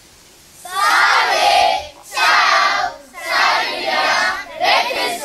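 A group of children calling out a greeting together in unison, in Italian, in four loud phrases of about a second each.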